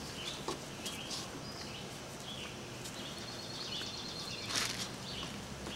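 Outdoor ambience: a steady low hum with scattered short, high bird chirps and a brief sharp noise about four and a half seconds in.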